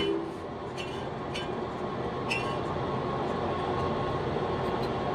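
Large engine lathe running, spinning and turning a cast-iron truck brake drum: a steady machine rumble with a few short clicks.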